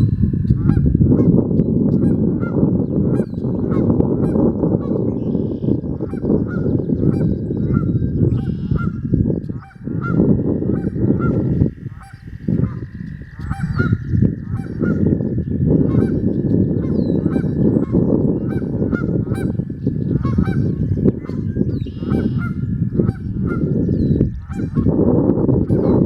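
A flock of geese honking continually, many short overlapping calls, under a loud, steady low rushing noise.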